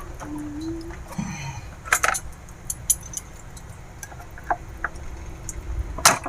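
Scattered light clicks and knocks of plastic on metal from a water purifier's push-fit hose fittings and filter housing being pried loose with scissors, with a louder click near the end.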